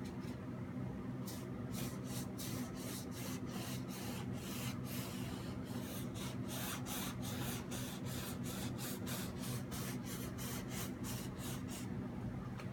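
Paint being applied in short, quick, scratchy strokes, about three a second, over a steady low hum.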